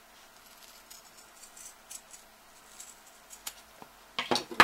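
Scissors snipping through folded cotton fabric in a few small cuts to round off a corner, with a louder cluster of clicks near the end.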